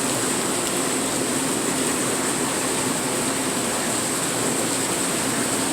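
Steady rushing and hissing of water circulating and bubbling in live lobster tanks, with a faint low hum underneath.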